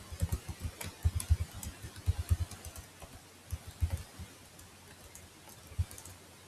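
Typing on a computer keyboard: quick runs of keystrokes, thinning out about halfway through to a few separate taps.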